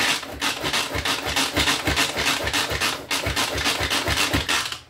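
Manual food processor being pulled again and again to chop jalapenos, each pull a short whirring rasp of the spinning blades, about two to three a second; the pulling stops just before the end.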